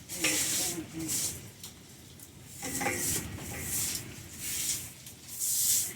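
Broom sweeping leaves over pavement: a string of swishing strokes, about one a second.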